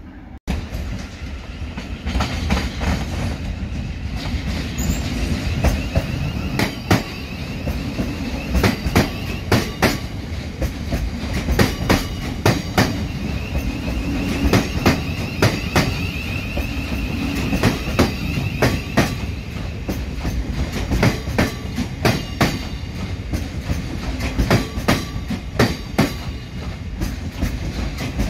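Southern Class 377 Electrostar electric multiple unit passing close by, its wheels clacking over rail joints and pointwork in a long run of sharp knocks over a steady rumble. A faint high whine comes and goes twice.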